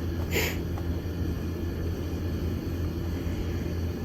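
Steady low rumble, with a short hiss about half a second in.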